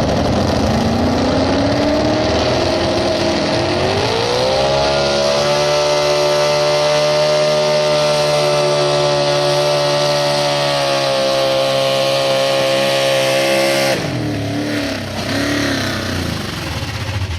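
Super stock 4x4 pulling truck's engine at full throttle during a pull: its pitch climbs for the first few seconds, holds high and steady, then cuts off suddenly about fourteen seconds in as the throttle is lifted, leaving a lower engine sound.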